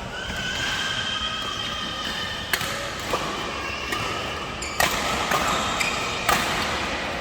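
Badminton racket strikes on a shuttlecock, three sharp hits a second and a half to two seconds apart, with shoes squeaking on the court floor in between.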